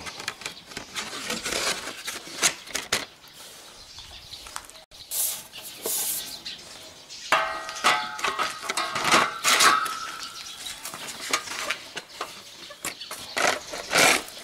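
Sheet-metal case cover of a small Wel-D inverter welder being lowered back over its circuit board and fitted in place: a run of metal clicks, knocks and rattles, with a short squeal around the middle.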